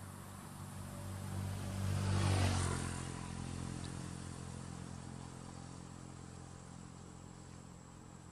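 A motor vehicle drives past. Its engine grows louder to a peak about two seconds in, drops in pitch as it goes by, then fades away.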